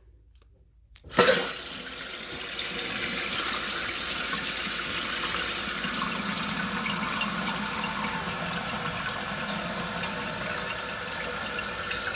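Water rushing into a newly installed toilet's tank through its fill valve as the supply is turned back on: it starts suddenly about a second in, then runs as a steady hiss of filling.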